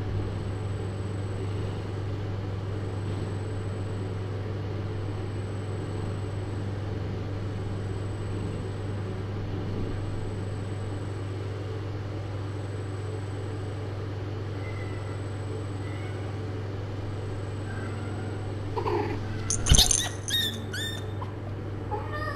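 Steady low hum of room noise, then near the end a sharp knock and a cluster of short, high kitten mews.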